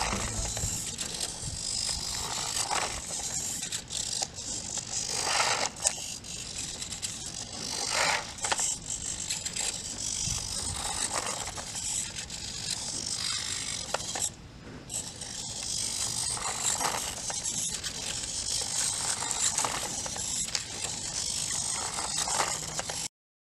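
Small hobby servo motors whirring in the 3D-printed Critter walking robot as its plastic legs push and scrape on concrete, with a louder scraping stroke about every two to three seconds. The sound stops abruptly near the end.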